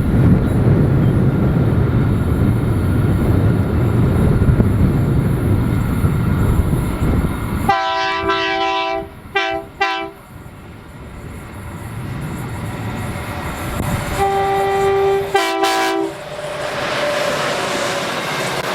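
A freight train's diesel locomotive rumbles past, then sounds its multi-note air horn: one long blast followed by two short ones about eight seconds in, and a second long blast and a short one about six seconds later. Near the end, wagons roll by with a hissing rail noise.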